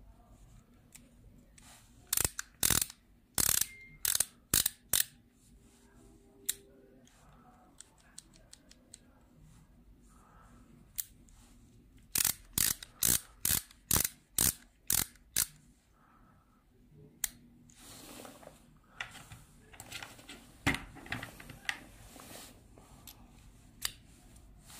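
Ratchet screwdriver's pawl mechanism clicking as the handle is turned. There are two runs of sharp clicks at about three a second, then softer, quicker clicking and handling noise in the last third as a metal bit holder is fitted.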